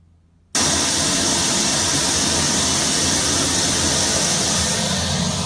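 White noise test signal from a loudspeaker, switched on suddenly about half a second in, then a loud, steady, even hiss that is strongest in the upper treble.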